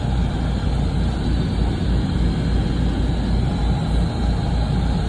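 Engine and road noise of a moving bus, heard from inside the cabin: a steady low rumble.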